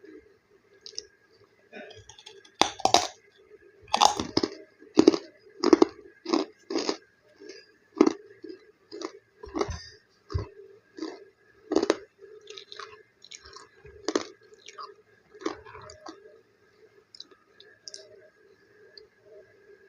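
Crispy snack being chewed close to the microphone: a run of loud, irregular crunches, thick in the first half and thinning out to softer, sparser chews toward the end.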